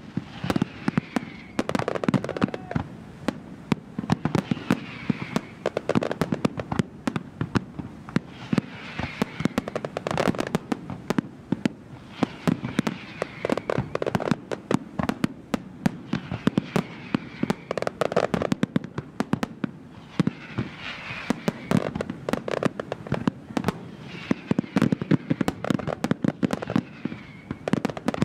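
Aerial fireworks display: a dense, continuous barrage of shell bursts and crackling, with many sharp bangs every second.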